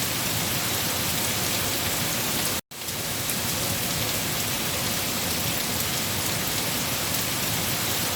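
Steady rain falling on a surface, an even hiss of drops. It cuts out for an instant about two and a half seconds in, then comes straight back.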